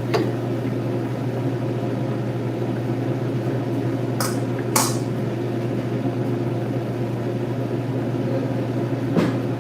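Steady low mechanical hum of a kitchen appliance, with a few sharp clinks of cooking utensils about four seconds in, again just before five seconds, and shortly before the end.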